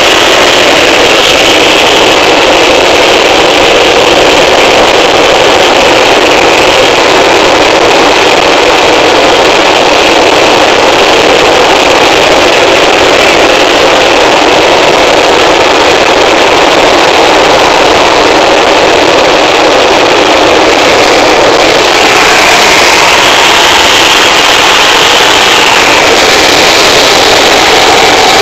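Light helicopter's engine and rotors droning loud and steady, heard from inside the cabin through a phone microphone, with a higher whine that shifts in pitch now and then.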